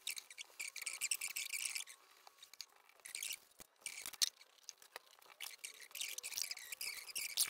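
A hand pad and cloth scrubbing and wiping blue layout dye off thin aluminium sheet: a rapid rubbing hiss in strokes, pausing briefly in the middle, with one sharp clack about four seconds in.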